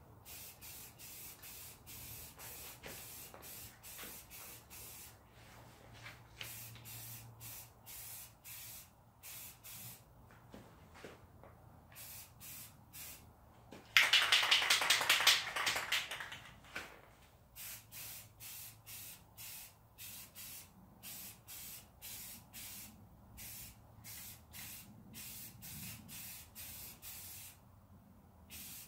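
Aerosol can of primer spraying in short hissing bursts, about one a second, with brief pauses between them. About halfway through comes a much louder rattle lasting two to three seconds.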